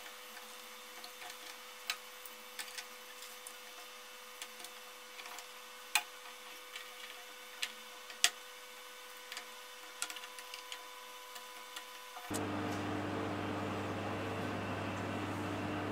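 Scattered sharp clicks and taps as small LED spot bulbs and metal recessed light fittings are handled and pressed into holes in an oak beam, over a faint steady hum. About twelve seconds in, the sound cuts to a louder steady low hum.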